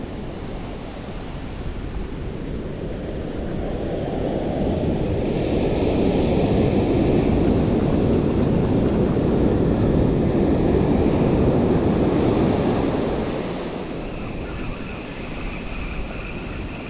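Ocean surf breaking and washing up the beach, swelling louder through the middle and easing off near the end.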